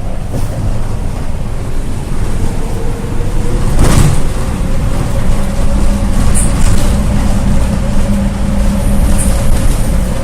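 Mercedes-Benz bus wheels at high speed: a steady whine over heavy road rumble, typical of a wheel-bearing problem. There is a loud thump about four seconds in.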